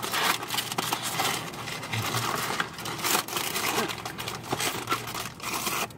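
Paper fast-food bags and wrappers rustling and crinkling as they are handled, with small irregular crackles and clicks throughout.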